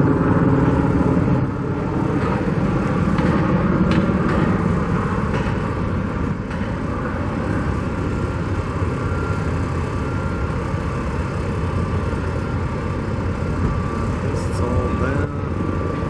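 Steady rumble of road traffic, with vehicles passing.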